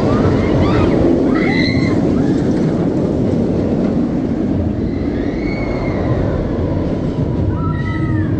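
Nemesis Reborn inverted steel roller coaster train running along its track close by, a steady loud rumble of wheels on steel rails.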